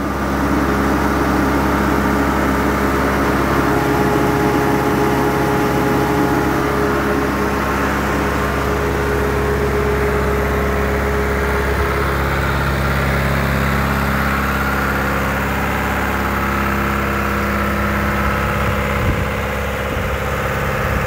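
John Deere farm tractor's engine running at a steady speed, turning a 35-kilowatt PTO-driven generator through its driveshaft to power the farm. It is a continuous, even engine drone with a slight change in pitch partway through.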